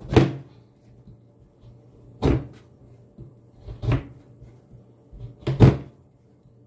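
Four sharp knocks or thuds on a hard surface, evenly spaced about every second and a half to two seconds.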